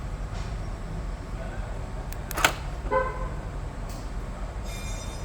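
Steady low hum, a sharp click about halfway through, then two short horn-like toots, the second higher and brighter, near the end.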